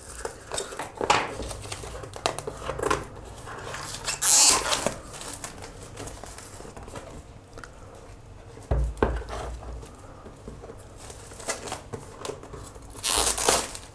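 A small pocket knife slitting the seals of a cardboard product box, and the box being turned and handled: scratchy cutting and tearing sounds, loudest about four seconds in and again near the end, with a dull knock just under nine seconds in.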